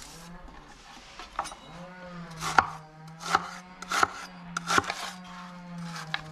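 Knife chopping on a cutting board: about seven sharp strokes, roughly one a second, over a low steady hum.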